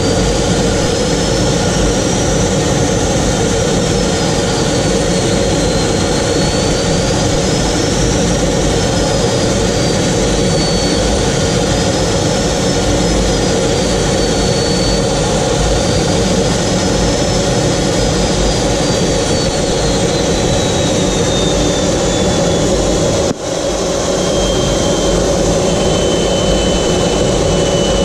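Jet trainer's turbine engine heard from inside the cockpit, a steady loud roar with a high whine that wavers up and down in pitch and slowly sinks lower toward the end. The noise dips briefly once, a few seconds before the end.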